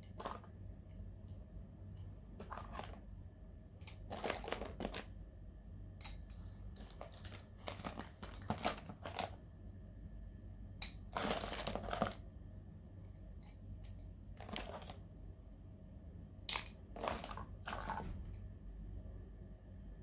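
Coloured pencils clicking against each other and paint tubes crinkling as hands pick pencils out of a pile of paint tubes. The handling sounds come in short irregular rustles and clacks, with one longer rustle about eleven seconds in, over a faint low hum.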